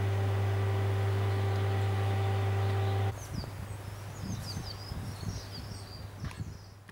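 A steady electrical hum with a strong low drone, like a fan or lamp ballast in a small tiled toilet room, cuts off about three seconds in. Small birds then chirp and sing outdoors over light low rumbling, fading out near the end.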